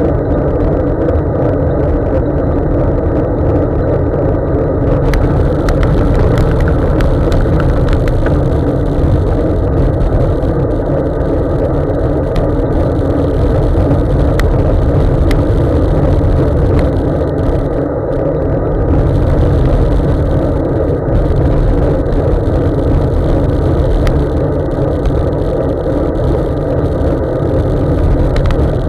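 Steady road noise from a Focus Mares CX cyclocross bike riding on wet tarmac: tyre rumble and wind on the bike-mounted camera's microphone, with a few faint clicks.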